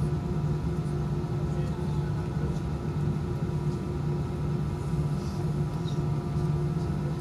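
Airbus A320 cabin drone while taxiing: the jet engines running at low thrust, heard inside the cabin as a steady hum of several tones.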